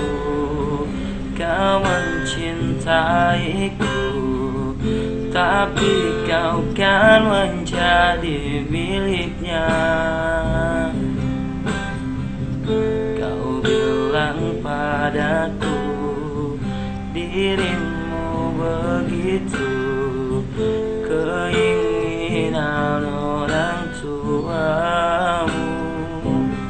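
A man singing, his voice wavering and gliding between held notes, over strummed acoustic guitar.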